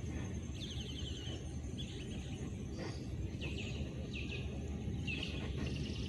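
A bird calling in several short runs of quick chirps, over a steady low rumble.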